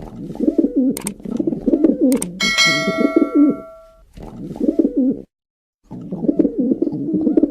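Pigeons cooing in repeated low, rolling phrases. About two and a half seconds in, a bell-like ding rings out and fades over a second or so, and the cooing cuts out briefly near the middle before resuming.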